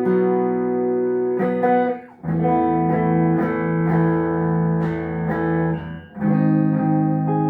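Tagima TW61 guitar played in a sound test after servicing: chords struck and left to ring, with two short breaks where the player changes to a new chord, about two seconds in and again about six seconds in.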